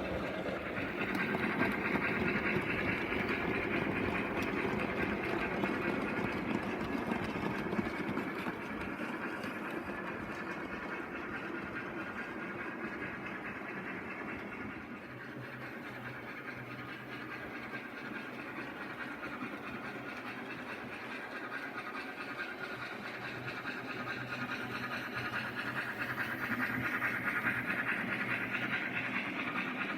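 OO gauge model locomotive running on the layout's track, a steady whirring rumble of motor and wheels on rail. It is louder near the start, fades somewhat through the middle, and grows louder again near the end as the locomotive comes back closer.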